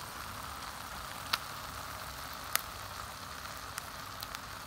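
Eggs cooking in the heated wells of a Grillo-400 four-hole electric egg roll machine: a steady sizzling hiss with two sharp pops, one just over a second in and another about two and a half seconds in.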